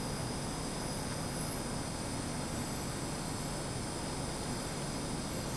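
Steady background noise in a workshop: an even hiss with a few faint, high steady tones, unchanging throughout, with no distinct knocks or starts.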